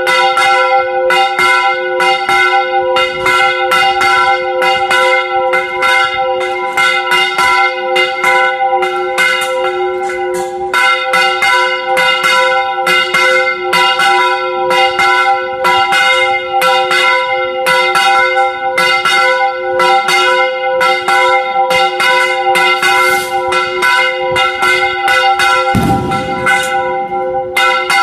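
Church bells rung in a repique: rope-pulled clappers strike the hanging bells in rapid, steady strokes, about three a second, several bell tones ringing on between the strikes.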